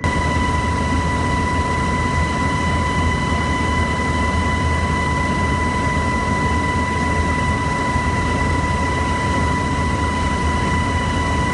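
Steady aircraft engine noise: a loud low drone with a constant high whine over it. It cuts in and out abruptly.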